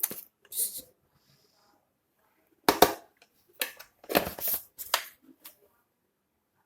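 Kitchen handling sounds as cornflour is spooned into gram flour for batter: a handful of short scrapes and knocks of a spoon against a container, the loudest a sharp knock about three seconds in and a longer scrape just after four seconds.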